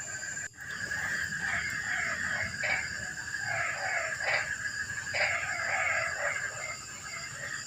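A chorus of frogs calling after rain, many croaks overlapping into a continuous din with repeated short falling notes. The sound drops out briefly about half a second in.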